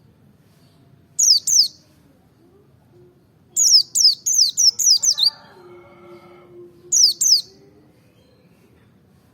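White-eye (pleci) singing in three bursts of rapid, high chirps, each note falling sharply in pitch; the middle burst is the longest.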